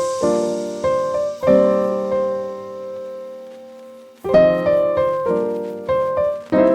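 Background music: a solo piano playing slow, sustained chords that ring and fade, with a pause of a couple of seconds in the middle.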